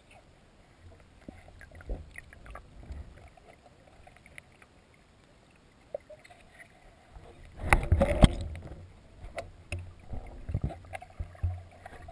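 Muffled underwater sound heard through a submerged camera in a swimming pool: water moving and scattered knocks against the camera, with a loud rush of water and bubbles about eight seconds in.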